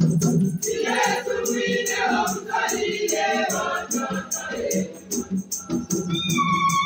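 Choir singing a hymn, with a rattle keeping a steady beat of about three strokes a second. A held instrument note comes in near the end.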